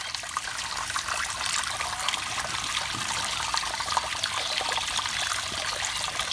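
Water trickling steadily, with many small irregular splashes.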